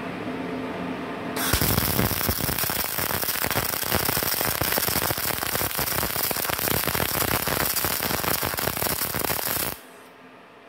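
MIG welding arc from a MultiPro MIG-MAG 350N inverter welder striking on steel plate and crackling steadily for about eight seconds as a bead is laid, then cutting off abruptly near the end when the trigger is released.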